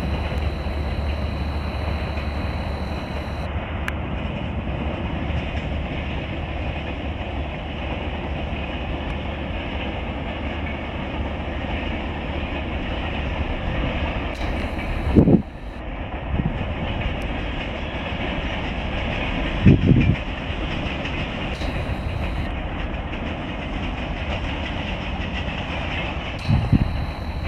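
Steady rumble and clatter of a moving train, broken by three short, louder thumps around the middle and near the end.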